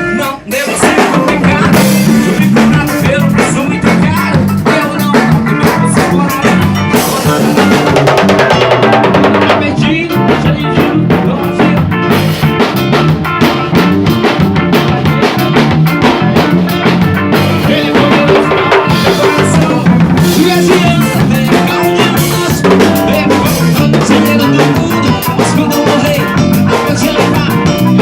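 A gospel band playing a song live, with a drum kit (snare, rimshots and bass drum) driving the beat under other sustained instruments. The sound drops out briefly just after the start and then carries on at full level.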